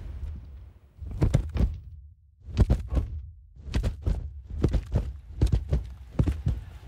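Racehorses' hooves galloping on turf: heavy thudding hoofbeats in groups of two or three, coming faster and faster.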